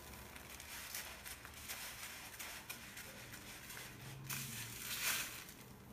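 Dry vermicelli rustling and crackling as hands press it around a batter-coated mashed-potato ball, with two louder crackly rustles near the end.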